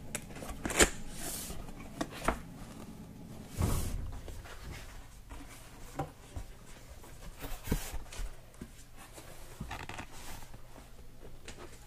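Cardboard box being worked open by hand: scattered scrapes, rustles and light knocks as the lid and inner flaps slide and fold, the loudest about a second in and about four seconds in.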